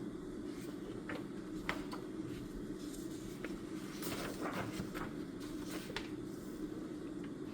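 Quiet desk-study sounds: a few light clicks and short scratchy rustles of paper and pen handling, over a steady low room hum.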